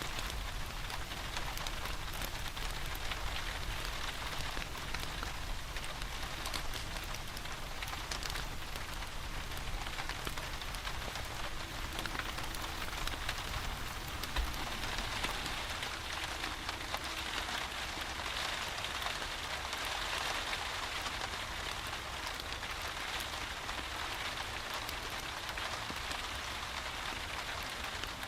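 Steady rain with a dense patter of drops, over a low rumble.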